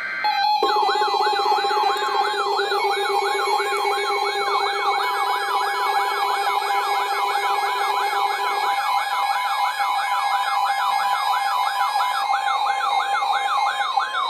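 Weather radio alert for a tornado warning: a siren warbling rapidly up and down, about three times a second, over a steady alarm tone. A low buzz under it stops about two-thirds of the way through.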